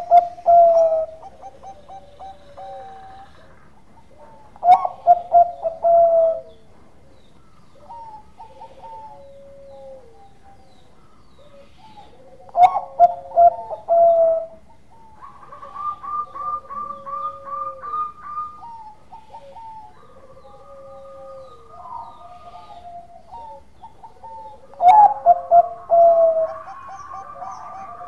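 Zebra doves (Bangkok-type perkutut) cooing. A loud nearby bird gives its song phrase of quick clipped notes ending in a falling trill about four times, several seconds apart, while other doves coo more quietly at different pitches in between.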